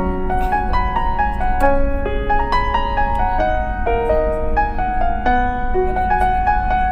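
Background piano music: a slow melody of single held notes over soft chords.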